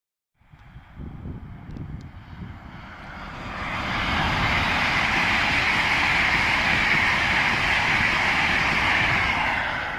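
A train approaching and passing through the station: wheel-on-rail and running noise builds over a few seconds into a steady loud rush with a low rumble beneath it, then starts to fade near the end.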